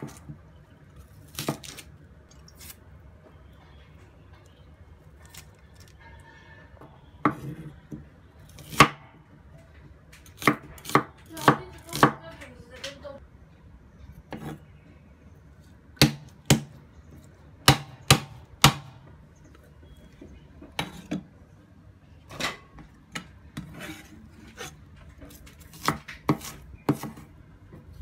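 Cleaver chopping shallots on a wooden cutting board: sharp, irregular knocks of the blade hitting the board, some in quick runs of two to four with short pauses between.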